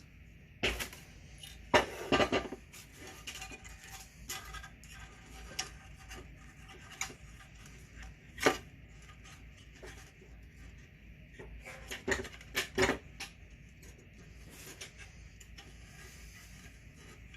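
Small metal screws and chainsaw fuel-tank parts being handled, giving irregular light clicks and metallic clinks, with louder clusters about two seconds in and again about twelve seconds in.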